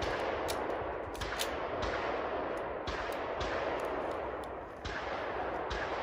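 Handgun shots: about eight sharp reports at irregular spacing, each with a short ringing tail, over a steady background noise.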